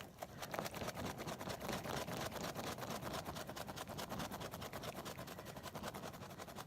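Sticky squishy toy being squeezed and handled, giving a fast, continuous run of sticky crackles.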